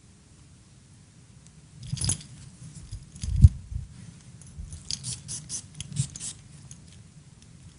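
Handling noise: brief rustles and clicks, a single dull thump about three and a half seconds in, then a quick run of clicks and scrapes.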